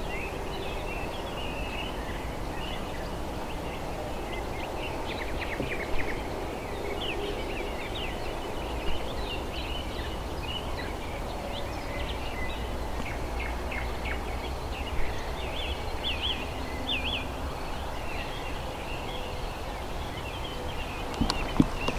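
Small birds chirping and calling in quick short notes, some in fast runs, over a steady low rumble of background noise, with an occasional faint knock.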